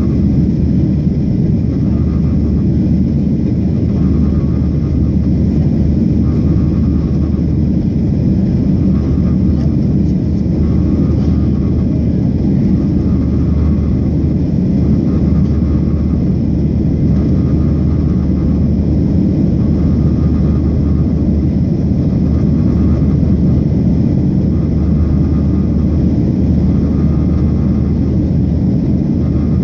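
Cabin noise of a Boeing 737-700 climbing after takeoff: a loud, steady rush of its CFM56 turbofan engines and airflow, with a faint tone that swells and fades about every two seconds.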